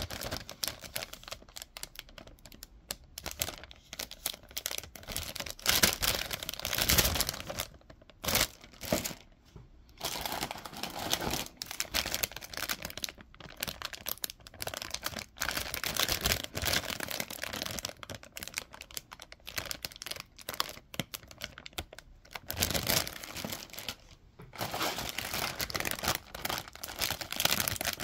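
Clear plastic bags holding Gunpla model-kit runners crinkling and rustling as they are handled, in irregular bursts with a few short pauses.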